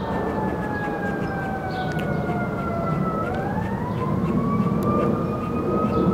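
A siren wailing: its pitch slides slowly down for about three seconds, then rises again. Under it runs a steady low rumble.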